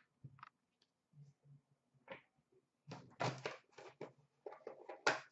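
Trading cards and packaging being handled on a counter: faint rustles and light taps, with a sharp click about five seconds in.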